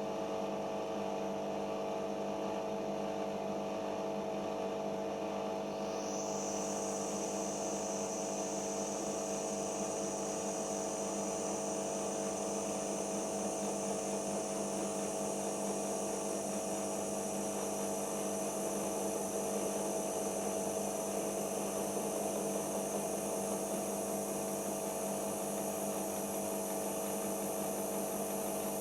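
Siemens iQ 1430 washing machine running in its final spin phase: a steady motor hum, with a high whine that starts about six seconds in, rises briefly and then holds steady.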